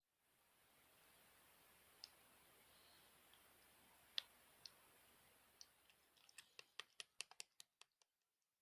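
Light, sharp clicks over a faint hiss: a few scattered ones, the loudest about four seconds in, then a quick run of about a dozen from about six seconds in that stops shortly before the end.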